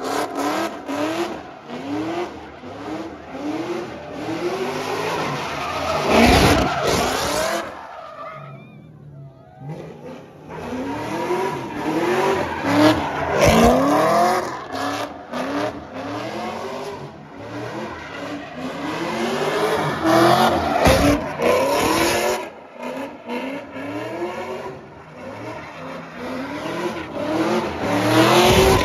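A car being driven hard with its tyres screeching, the engine revving again and again, each rev rising in pitch, with a few loud thumps. It drops away briefly about eight seconds in, then picks up again.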